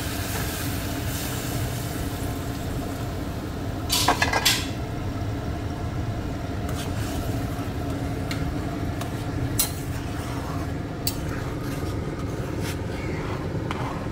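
Hot water poured into a steel kadai of frying curry, then a steel spatula stirring it, knocking against the pan several times about four seconds in and clinking now and then after, over a steady low rush.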